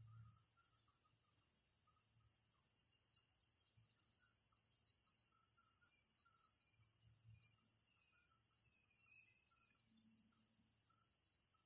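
Faint steady chorus of crickets and other insects, with a few short bird chirps scattered through it.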